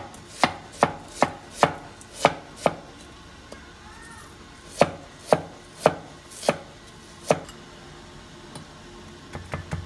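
A cleaver chopping shallots and ginger on a wooden cutting board, in sharp evenly spaced strokes. A run of about seven chops is followed by a pause of about two seconds, then five more chops, and a few light taps near the end.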